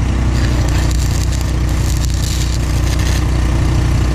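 Arc welding on a steel pipe fence: the welding arc crackles and sizzles for about three seconds, stopping near the end, over the steady low drone of an engine running.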